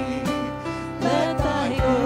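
Worship band playing a hymn: several singers over bass and electric guitar, with the voices coming in strongly about a second in.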